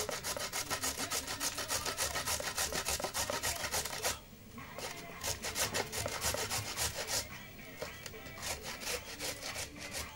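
Carrot being grated on a metal box grater into a plastic bowl: quick rasping strokes, about four a second, with a short pause about four seconds in, then fainter, sparser strokes.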